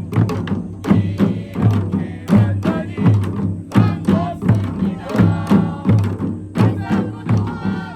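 Korean pungmul percussion band playing: drums and gongs struck in a steady, driving rhythm with strong beats a little more than once a second, and a wavering pitched line above the drums in places.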